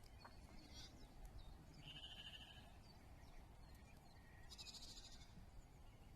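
Sheep bleating faintly, two short calls about two seconds in and again near five seconds, over a low background rumble.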